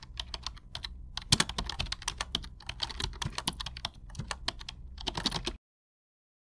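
Computer keyboard typing: a quick, irregular run of key clicks that cuts off suddenly about five and a half seconds in.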